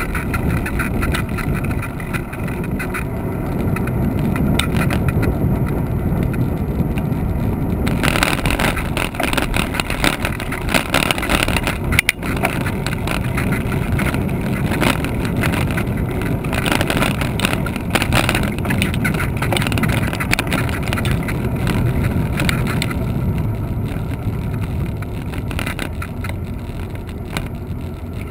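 Wind rushing over the microphone of a camera riding along a paved path, with a steady low rumble from the ride itself. Hissier gusts come in from about eight seconds in.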